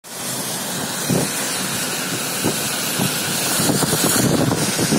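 Wind buffeting a phone microphone: a steady rushing hiss with irregular low rumbles from gusts hitting the mic.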